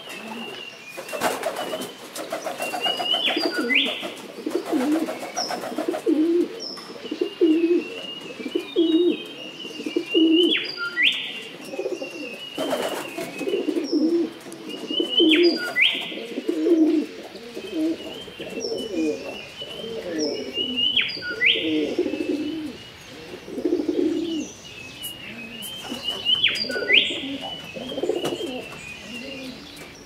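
Common wood pigeon cooing in repeated low phrases, with a small songbird singing a short, high, sweeping phrase in the background about every five seconds.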